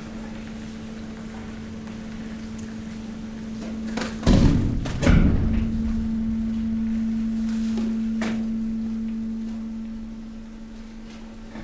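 Hydraulic waste compactor's pump running with a steady hum. About four and five seconds in come two loud crashes, and after them the hum is louder for several seconds before easing off near the end.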